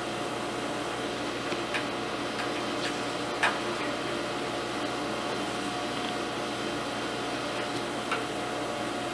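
A screwdriver driving a screw into the heater element's metal frame, giving a few short light clicks of metal on metal, over a steady background hum and hiss.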